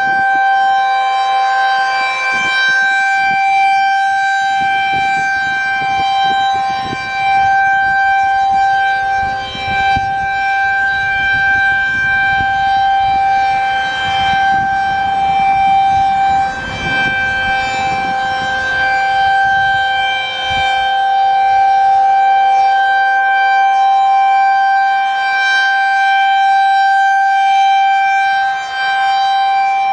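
Federal Signal 2001-SRN electromechanical rotating siren sounding the Alert signal: one steady, unwavering tone, loud, swelling and fading as the horn turns toward and away.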